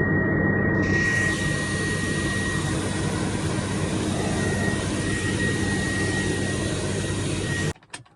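Farm machinery engine running steadily at harvest, with a constant high-pitched whine and a rushing hiss over it; it cuts off suddenly near the end.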